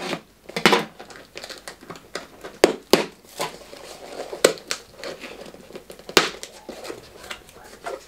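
Small cardboard shipping box being torn open by hand, packing tape and cardboard flaps ripping and crinkling in a series of sharp, irregular tears.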